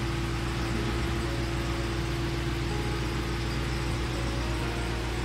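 A motor running steadily with an even, low hum that does not change.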